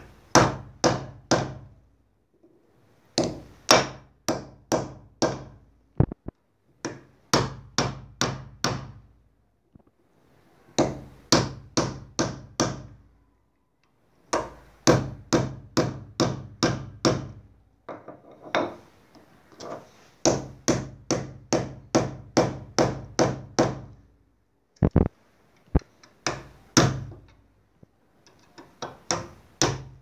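Sharp metal-on-metal taps on a steel rod, in runs of four to ten at about three or four a second with short pauses between, as a table fan's stator core and coil are worked out of the motor housing with a homemade bolt puller.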